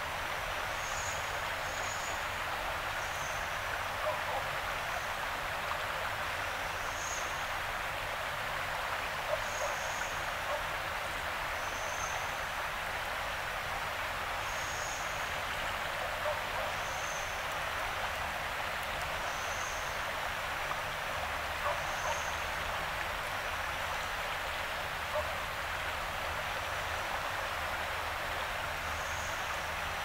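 Yarra River water flowing in a steady rush. A short, high chirp repeats every second or two over it.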